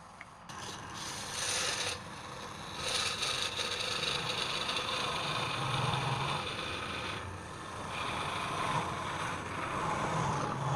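Wood lathe running, with a tool or abrasive rubbing and scraping on the spinning wood. It starts about half a second in and rises and falls in loudness, dipping briefly twice.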